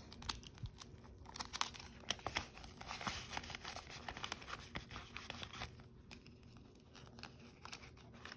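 Crinkling of a clear plastic cash-envelope pouch and rustling paper banknotes as bills are slid into it and straightened, a run of soft crackles that thins out over the last couple of seconds.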